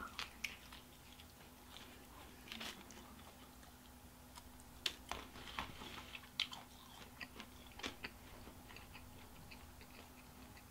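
A bite into a slice of pizza, then quiet chewing with irregular sharp crunches from the crust, spaced a second or more apart.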